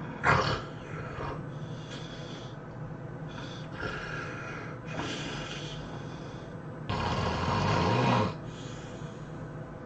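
A person snoring heavily in deep sleep: a sharp, loud snort about a quarter second in, a few softer noisy breaths, then one long, loud snore of about a second and a half near the end.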